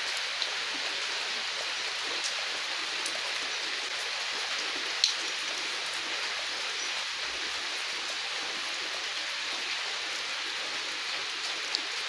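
Steady rain falling on muddy ground: an even hiss with scattered sharp drop ticks, one louder about five seconds in.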